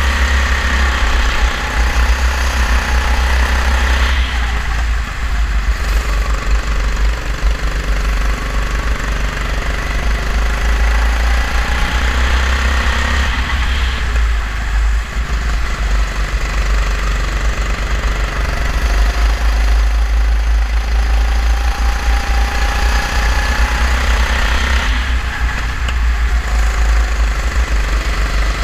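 Go-kart engine heard on board at racing speed, its note climbing and falling away three times through the lap. A heavy steady rumble of wind on the microphone runs underneath.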